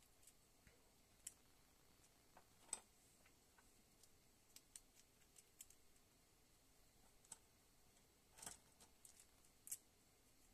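Faint, irregular clicks and taps of small black plastic cycloid gear parts being handled and fitted together by hand. The louder clicks come about a quarter of the way in and in a cluster near the end.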